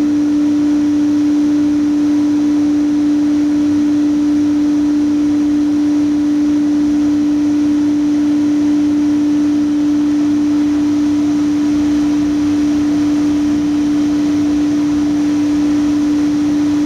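Laser cutter running a cutting job with a loud, steady hum: one unchanging pitch over a faint hiss.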